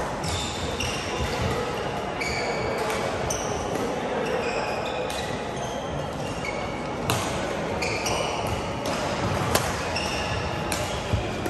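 Badminton rally: several sharp cracks of rackets striking the shuttlecock and many short, high squeaks of court shoes on the sports mat, over a background of voices in the hall.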